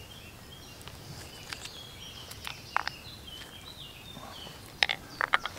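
Woodland birdsong: thin whistled notes stepping up and down in pitch. A few sharp clicks and taps cut across it, one in the middle and a loud cluster near the end.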